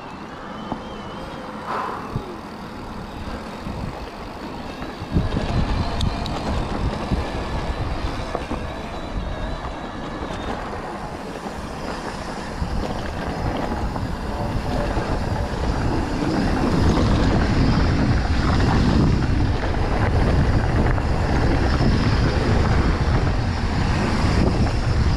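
Riding a mountain bike along a dirt trail: wind buffets the camera microphone over the rattle and rumble of the bike on the ground. It jumps louder about five seconds in and grows louder again past the midpoint.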